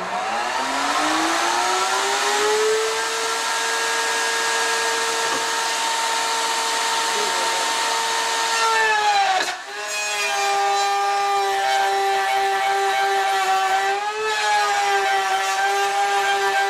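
Table-mounted router with a half-inch straight bit spinning up with a rising whine, then running steady and really loud. About nine seconds in the pitch drops as the motor takes the load of a board fed into the bit, cutting the ledge that the beehive frames rest on.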